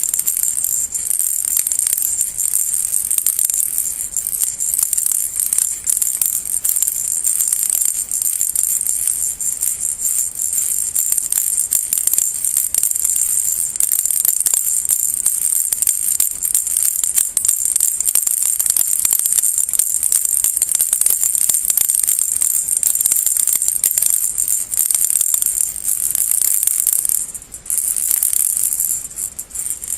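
Baby rattle shaken continuously: a dense, bright jingling rattle of small beads, with two short dips near the end.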